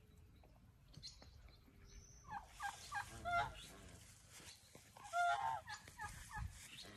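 Domestic fowl calling: a bout of rapid, wavering calls about two and a half seconds in, then a louder bout about five seconds in.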